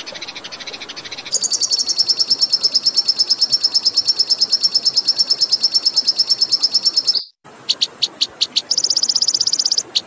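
Recorded songbird song used as a masteran training track. A short buzzy trill gives way to a long, fast trill of high repeated notes, about ten a second, which cuts off abruptly about seven seconds in. Separate short chips follow, then another fast trill.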